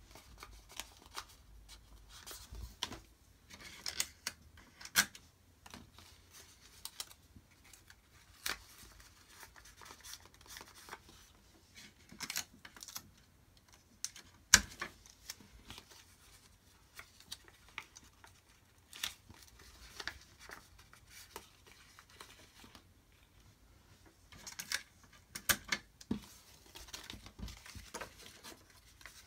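Folded paper rustling and crinkling in scattered short crackles as hands crease and shape a paper airplane, with one sharp tap about halfway through.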